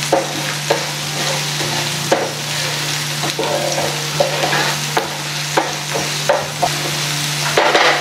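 Chopped onions sizzling in melted butter in a nonstick pan, with a wooden spatula scraping and tapping against the pan about once or twice a second as they are stirred.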